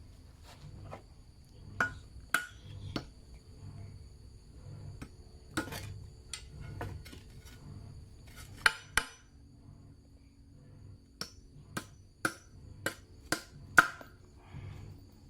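Irregular sharp knocks and taps from hand-tool work, about a dozen strikes at uneven intervals, each with a brief metallic ring. The loudest strikes come in a cluster near the end.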